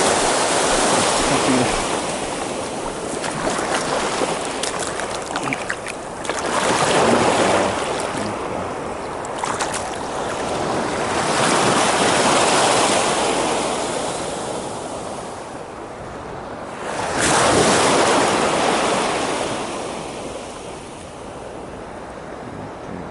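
Waves breaking and washing up the shore, rising and falling in four big surges about five to six seconds apart.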